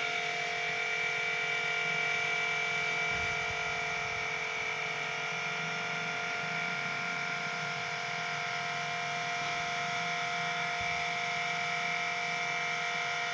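A machine running steadily with a constant whine and a rough, noisy edge.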